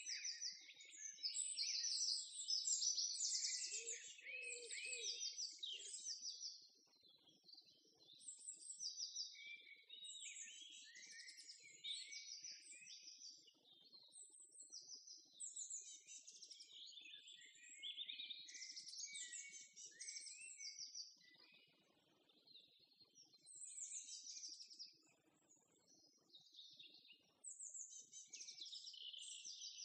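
Songbirds singing: rapid chirps and trills that go on almost without a break, with a few brief lulls.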